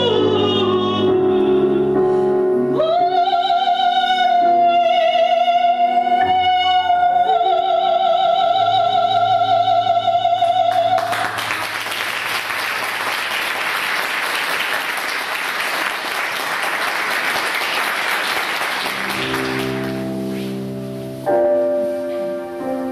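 A woman sings an operatic line with piano accompaniment and ends on a long held note with vibrato about eleven seconds in. The audience then applauds for about eight seconds. Near the end the piano begins the next piece.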